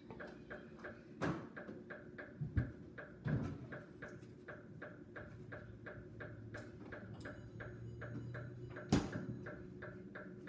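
Steady fast ticking, about three ticks a second, with four louder knocks and clunks, the loudest near the end.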